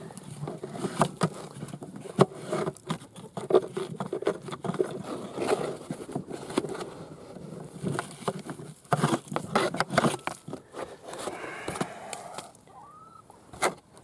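Repeated clicks, knocks and scraping from handling a beehive's entrance while trying to get a mouse out, over a low hum of bees clustered inside the hive that fades out near the end.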